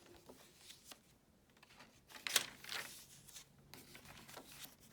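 Paper pages of a handmade journal being handled and turned: faint soft rustles and small clicks, with a sharper rustle of a page turning a little past two seconds in.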